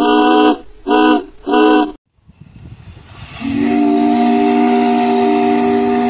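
Three short blasts of a multi-note ship's whistle, then an abrupt cut to a rising hiss of steam and one long, steady blast of the steamship Segwun's chime steam whistle, several notes sounding together as a chord.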